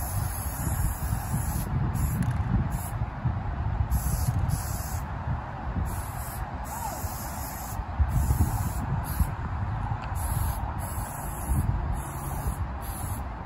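Aerosol spray-paint can hissing in repeated bursts of varying length as the nozzle is pressed and released, with a low rumble underneath.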